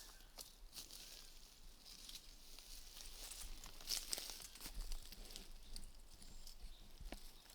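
Faint rustling and crackling of dry leaves, twigs and brush, with scattered small snaps, from people moving through forest undergrowth.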